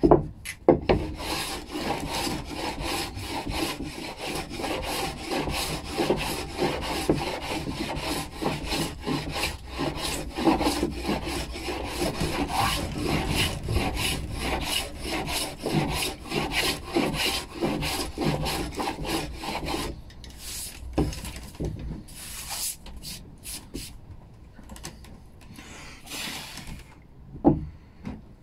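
A hand-held block rubbed quickly back and forth over a pine board, many short scratchy strokes. About two-thirds of the way through the strokes become slower and sparser, and a single sharp knock comes near the end.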